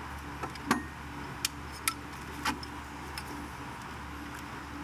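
A handful of sharp, irregular metal clicks and taps as the wiring harness is fitted and fastened by hand at the back of an alternator, over a steady low hum.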